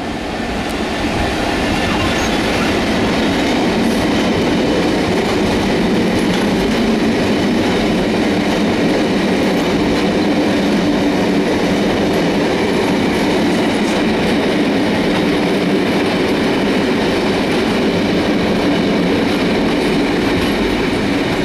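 Freight train of bogie hopper wagons rolling past close by: a steady loud rumble and rattle of wheels on the rails that swells over the first second and then holds level.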